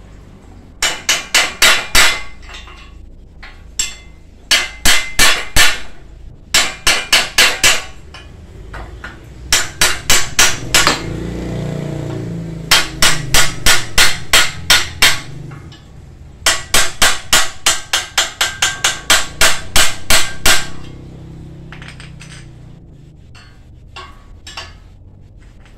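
Hammer blows on a rust-seized bicycle part, struck in quick runs of several hits, about five a second, with short pauses between runs. The metal rings sharply. The part is being knocked loose because rust has seized it.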